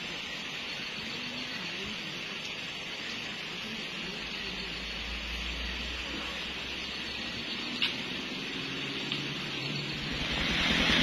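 Steady hiss of rain falling on a wet road, with a single short tap about eight seconds in.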